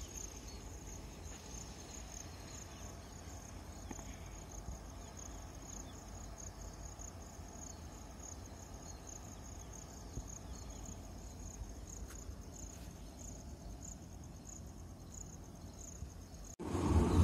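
Crickets chirping in a steady, pulsing high trill over a faint low rumble. Near the end the sound cuts suddenly to the much louder rumble of an approaching train.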